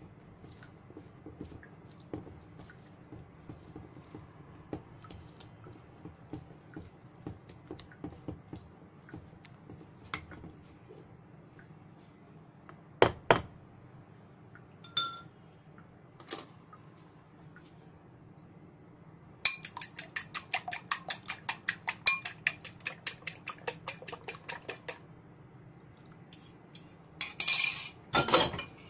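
A utensil stirring thick batter in a stainless steel mixing bowl: soft scraping ticks at first, with a few sharp clinks against the metal bowl a little before halfway. About two-thirds in comes a run of rapid, even tapping as the batter is beaten against the bowl, then louder, faster beating near the end.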